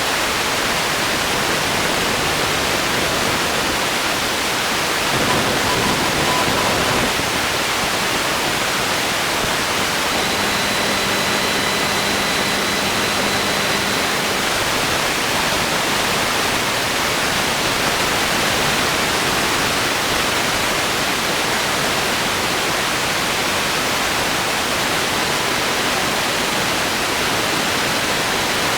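Television static: a steady hiss of white noise, with faint brief tones showing through it now and then.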